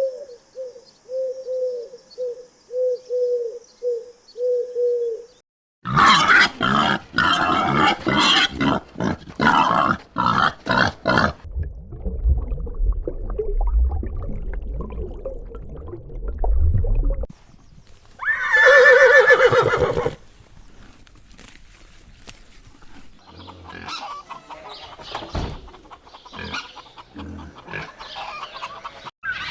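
A succession of different farm animal calls, one after another: first a run of short, evenly repeated calls, then a loud rhythmic stretch, a low rumble, a single loud pitched call, and scattered quieter calls.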